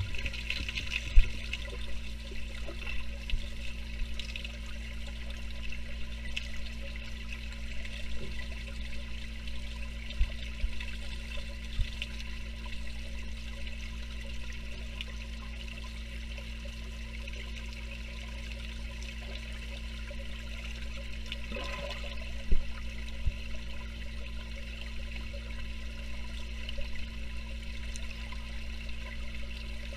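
Muffled water sounds heard with the microphone underwater: a steady low hum and faint hiss, broken by a few short knocks of water moving as a swimmer kicks overhead.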